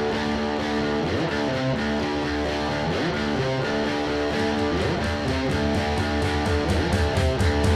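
Electric guitar playing ringing, held chords through an amplifier, growing louder near the end.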